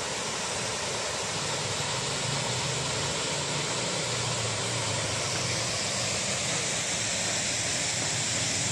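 Small waterfall splashing steadily into a pool: a continuous, even rush of falling water.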